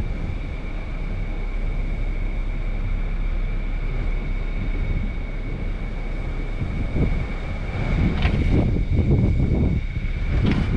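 Typhoon winds buffeting the microphone: a constant low rumble of gusts that grows stronger about seven seconds in.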